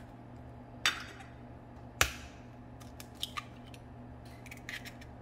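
Eggs being cracked into a glass measuring cup: a sharp knock about two seconds in as a shell is rapped, with lighter clicks and crackles of eggshell being broken and pulled apart.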